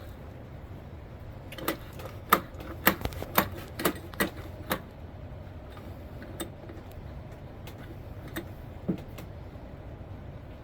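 Sharp metallic clicks and taps of hand tools and engine parts being worked during cam timing on a small ATV engine: a quick run of about eight clicks in the first half, then a few scattered ones, over a steady low hum.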